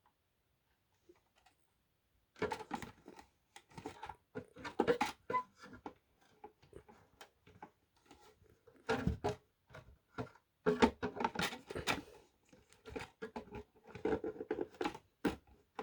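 Fire alarm devices being handled and moved about: irregular clatter, knocks and rustling, starting about two seconds in.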